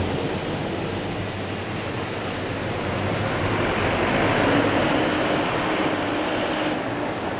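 Road traffic passing on the street: an even rush of vehicle noise that swells to a peak about halfway through and then fades.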